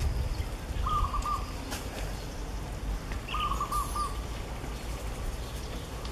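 A bird calling in the background: two short runs of quick hooting notes, about two and a half seconds apart, over a steady low rumble.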